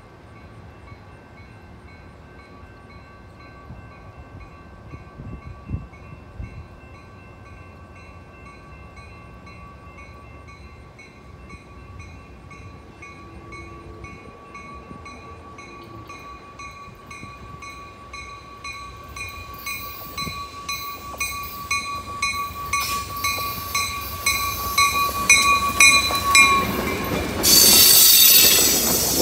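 Amtrak passenger train approaching along the track, growing steadily louder, with a high steady ringing tone and a regular pulse over it. About 27 s in the coaches pass close by with loud wheel and rail noise.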